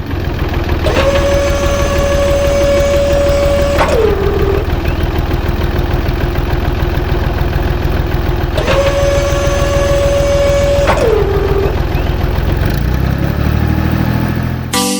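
Mini tractor engine running with a steady low rumble. Twice, a high whine holds for about three seconds and then drops in pitch. The sound starts and stops abruptly.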